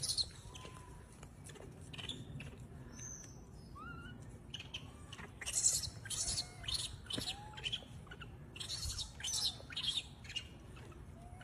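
Wild macaques giving a string of short coo calls, each rising then falling in pitch, with quick high-pitched squeaks and chirps scattered among them.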